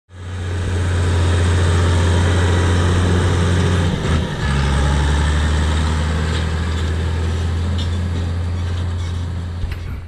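Case IH 1455 XL tractor's turbocharged 6.6 L six-cylinder diesel working steadily under load while pulling a 28-disc Baldan offset disc harrow, with a strong low drone. Its note dips slightly about four seconds in, and the sound fades near the end.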